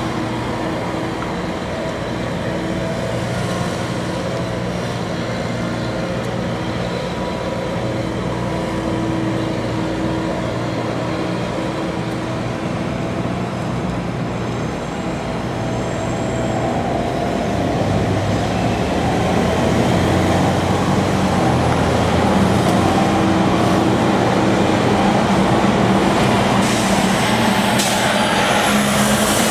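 Madvac 101-D sidewalk litter vacuum running steadily, its engine and suction blower making a continuous loud drone, mixed with street traffic that grows louder in the last third as a bus passes.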